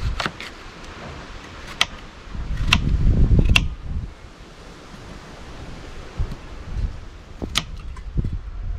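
Knife cutting raw potatoes on a wooden cutting board: a handful of sharp, irregularly spaced taps of the blade on the board. A low rumble of wind on the microphone swells up about two and a half seconds in.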